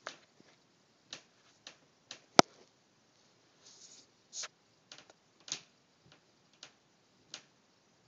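About a dozen sharp clicks and knocks at uneven intervals, one much louder about two and a half seconds in, with a brief soft rustle just before the middle.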